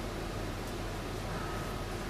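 Room tone: a steady hiss with a low hum underneath.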